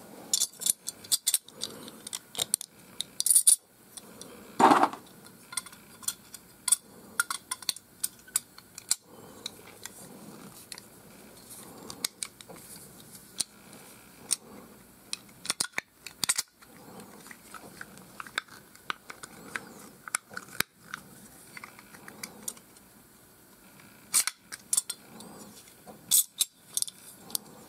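Scattered small metal clicks, clinks and scrapes of a Stanley 99E utility knife being handled and fitted together: its zinc die-cast body halves and blade knocking against each other, with one louder clack about five seconds in.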